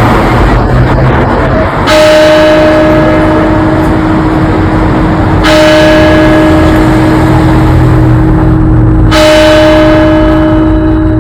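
Hawick Town Hall clock bell striking the hour, three strokes about three and a half seconds apart, each ringing on with a long steady hum until the next stroke.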